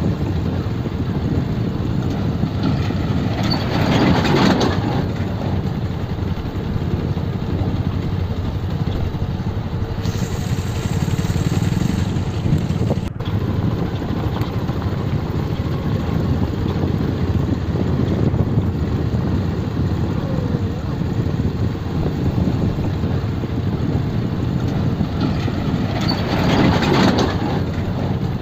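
Motorcycle engine running steadily at low speed over a rough dirt road, heard from the rider's own bike, with two louder rushes of noise about four seconds in and near the end.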